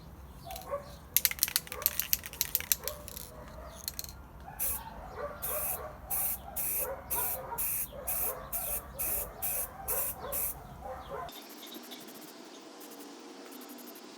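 Short hissing strokes repeating steadily about twice a second, from hand work on an old vise. Near the end the sound cuts to a faint steady hiss.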